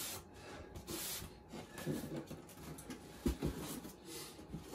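Handling noise from fitting the bust's arm and jacket sleeve: fabric rustling and a few light knocks, the sharpest two close together about three seconds in.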